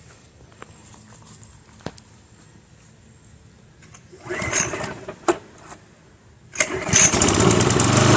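Walk-behind gasoline lawn mower being pull-started by hand. A short rattle of the recoil starter comes about four seconds in. Near the end the engine catches and runs steadily.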